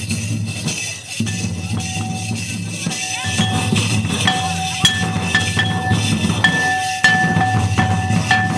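Folk drumming: double-headed barrel drums beat a dance rhythm, with a high ringing note sounding again and again over them.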